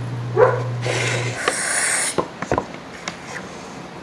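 Dishes being handled: a rustling scrape about a second in, then a few light clicks and taps. Under it runs a low steady hum that cuts out partway through.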